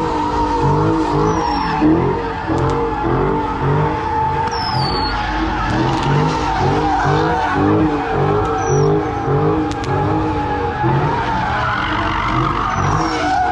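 A car doing donuts: its tires squeal in one long, unbroken screech while the engine note rises and falls over and over.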